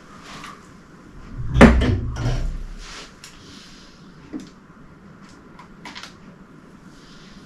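A hard thump with a short rattle, then a few light clicks and knocks: parts and packing pieces being handled and knocked against the housing while a new 3D printer is unpacked.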